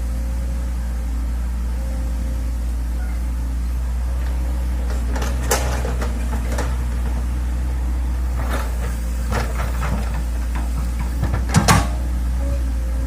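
Hitachi excavator's diesel engine running steadily while digging, with a few sharp metallic knocks from the working gear, the loudest a quick double knock near the end.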